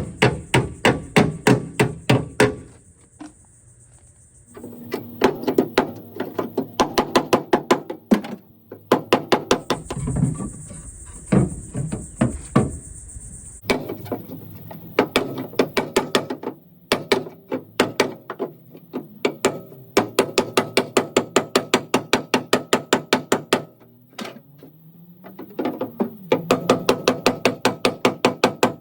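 Bursts of rapid hammer blows, several a second, on a car's sheet-metal rear quarter panel, each blow ringing. The panel is being beaten back out from crash damage.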